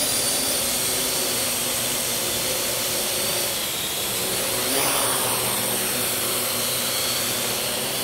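Parrot AR Drone 2.0 quadcopter's four electric rotors whirring steadily as it hovers and descends, carrying a 100-gram test weight that it handles without strain. The pitch shifts briefly about halfway through as it maneuvers.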